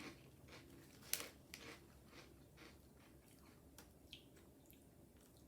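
Faint crunching and chewing of thin, light, crispy snacks being eaten, a scatter of small crackles with a sharper crunch about a second in.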